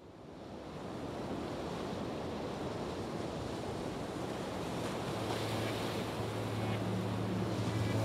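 Steady rushing noise like wind or surf, fading in, with a low held tone joining about five seconds in: the build-up of an ambient outro music track.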